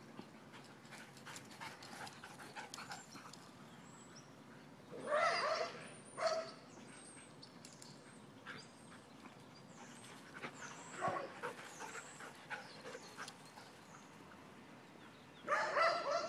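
Belgian Tervuren dogs vocalizing as they play: short, loud bursts of barking and yelping about five seconds in, again around eleven seconds, and near the end.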